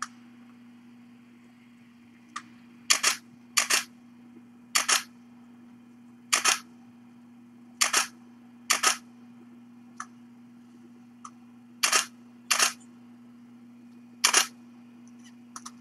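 A series of camera shutter clicks as pictures are taken: about nine sharp, short shutter sounds at uneven intervals of roughly half a second to three seconds, with a few fainter clicks between them.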